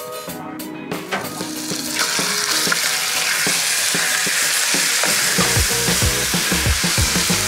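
Diced chicken breast sizzling in hot oil in a wok and being stirred with a spatula; the sizzle starts about two seconds in as the meat goes into the pan. Background music plays throughout, and a heavy bass beat comes in near the end.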